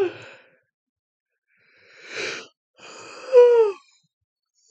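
A woman yawning: a long breath drawn in about two seconds in, then a moan falling in pitch as she breathes out, the loudest part of the yawn.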